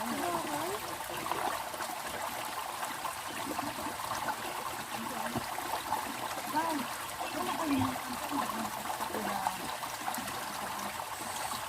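Running water of a stream or small river, flowing and trickling steadily.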